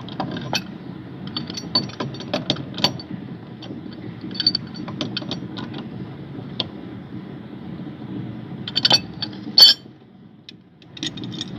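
Pipe wrench clicking and scraping on threaded plastic pipe fittings as they are turned tight, with scattered clinks of fittings and tools handled. A louder clatter comes about nine to ten seconds in.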